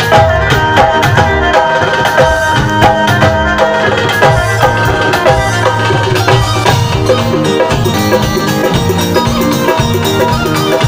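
Instrumental interlude of a Punjabi folk song played live by a band: tabla and drums keep a fast, even rhythm under a keyboard melody.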